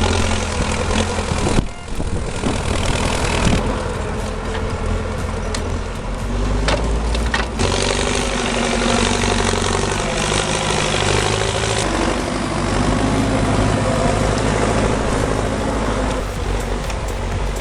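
A heavy vehicle's engine running steadily throughout, with a deep, even drone. The sound changes abruptly a few times.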